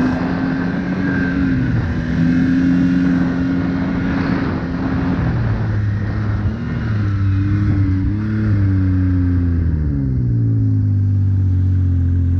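Arctic Cat snowmobile engine running while riding. Its note drops about five seconds in, rises and falls again between seven and ten seconds as the throttle changes, then holds steady.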